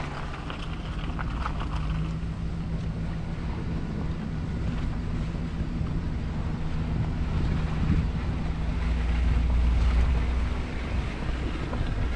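A vehicle engine running steadily with a low hum, getting louder about eight seconds in, with wind noise on the microphone.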